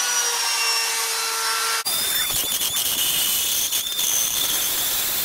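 Dremel rotary tool with a roto-zip style cutting bit running at speed with a steady high whine, then biting into a high-molecular-weight plastic sheet about two seconds in, the sound turning rougher and grinding while it cuts.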